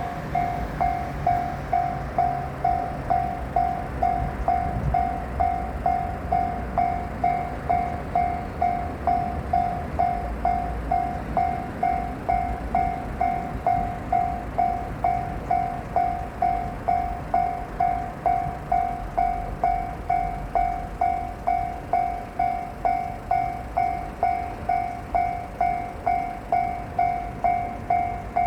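Japanese level-crossing warning bell ringing steadily, an electronic clang repeated about twice a second, over a low rumble of rail traffic.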